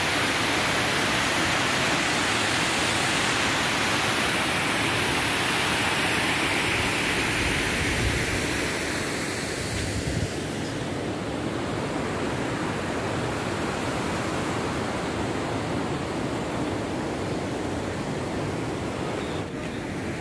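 Water cascading down a steep bare rock slope, a steady rushing sound that becomes a little quieter about halfway through.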